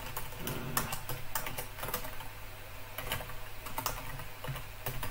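Computer keyboard typing: an irregular run of key clicks as a short title is typed in.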